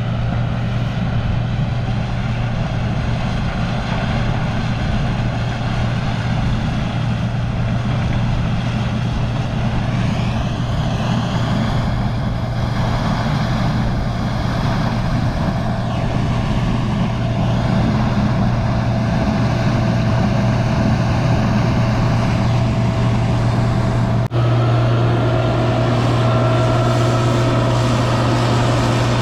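Combine harvester running steadily with a strong low hum, the machine working in corn. About 24 s in the sound breaks off for an instant, and afterwards a steady higher whine from the machinery joins the hum.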